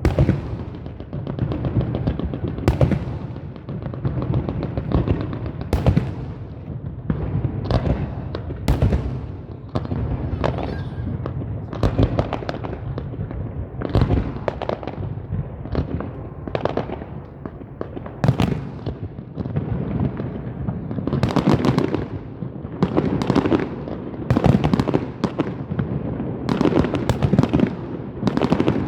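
Fireworks going off in a dense, continuous barrage: many sharp bangs and crackles per second, with no pause.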